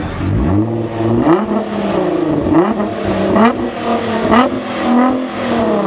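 Nissan R35 GT-R's twin-turbo 3.8-litre V6 revved through its exhaust about five times in quick succession, each rev a rising sweep in pitch that drops away, before settling back to idle near the end.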